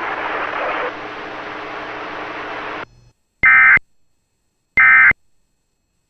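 Emergency Alert System end-of-message data bursts: short, identical, warbling two-tone digital chirps, two of them about a second and a half apart, with a third starting at the very end. They mark the close of the alert. Before them, a steady radio hiss with a low hum cuts off about three seconds in.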